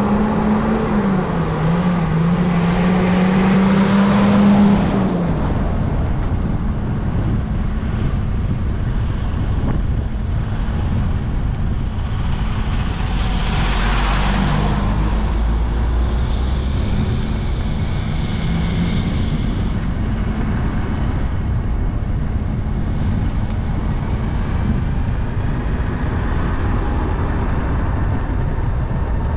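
Trike riding along a paved road: steady wind and road rumble, with an engine drone that wavers in pitch for the first five seconds. A deeper low rumble swells near the middle as a semi truck is passed.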